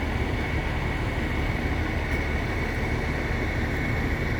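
A vehicle engine running steadily, with a constant high-pitched whine over the low rumble.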